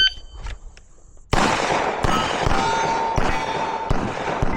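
A Gen 5 Glock 34 9mm pistol fires a string of several shots, starting about a second in, at roughly one shot a second, with steel target plates ringing between the shots.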